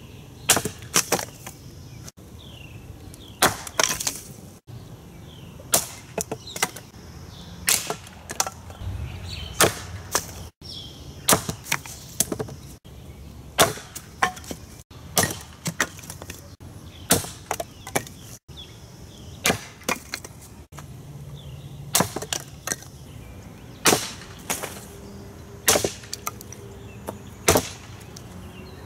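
Helko camping hatchet's carbon-steel head chopping and splitting firewood and thin boards on a wooden chopping stump: a long series of sharp wooden chops and cracks, about one every second or so, some in quick pairs as the wood splits apart.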